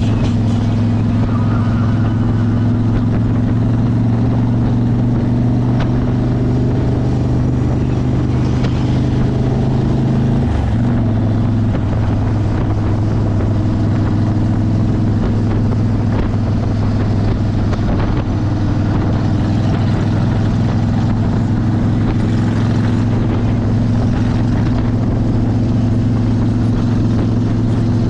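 Cruiser motorcycle engines running steadily at road speed, with rushing air noise over them. About ten seconds in, the engine note dips briefly, then settles back to the same steady drone.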